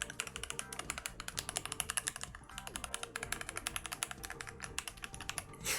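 Keychron K6 Pro mechanical keyboard with Keychron red Pro linear switches being typed on fast, a quick, continuous run of keystroke clacks.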